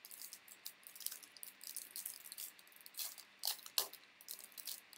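Baseball trading cards being handled and flipped through, an irregular run of light, sharp flicks and rustles, the loudest a little past three and a half seconds in.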